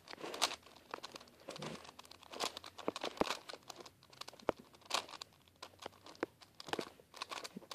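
Plastic 4x4x4 Rubik's cube being turned by hand: an irregular run of quick clicks and scraping rasps as its layers are twisted.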